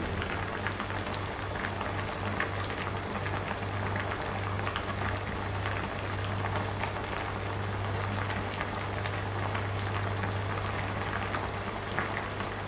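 Spicy cod stew at a rolling boil in a clay pot over a gas flame: a steady crackle of many small popping bubbles, with a low steady hum underneath.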